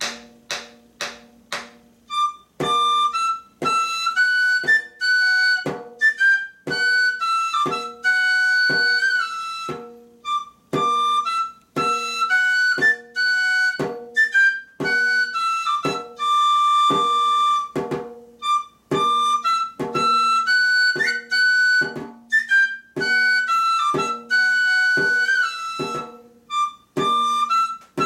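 Tabor pipe in D playing a lively melody while the player beats a rope-tensioned tabor drum with a stick. The drum strikes four times alone before the pipe comes in about two seconds in, then keeps a steady beat of about two strokes a second under the tune.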